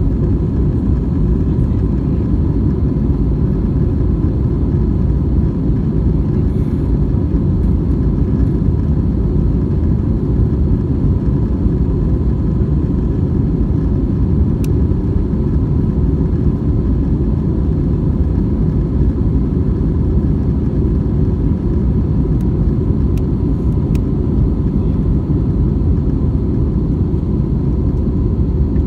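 Airliner cabin noise in flight: a loud, steady, deep rumble of engines and rushing air, with a faint even hum over it.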